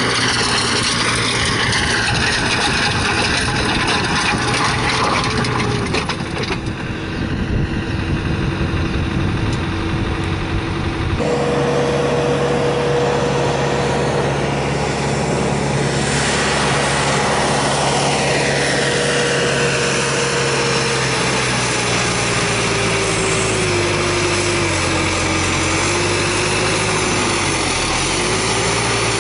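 Tractor engine running as it drives a tractor-mounted stone crusher through stony ground, the crusher's churning mixed in with the engine. The sound changes abruptly about eleven seconds in, and in the second half a tone slowly falls and wavers.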